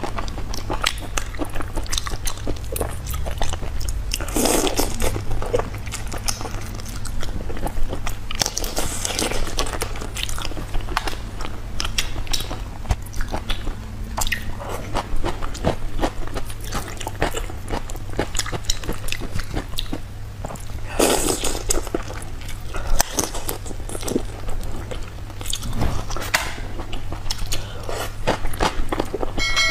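Close-miked eating of marinated prawns: wet sucking, lip smacks and chewing, with many small mouth clicks and a few louder crunches, over a low steady hum.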